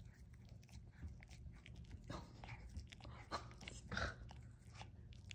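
A small dog gnawing and chewing, with faint wet crunching and clicking bites; the louder bites come about two, three and four seconds in.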